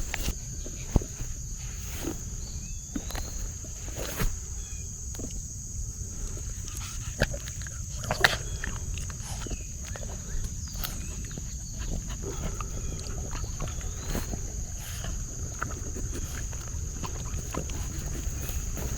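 Outdoor walking ambience on a farm: scattered footsteps and clicks over a steady high-pitched drone, with faint short chirps and a low rumble.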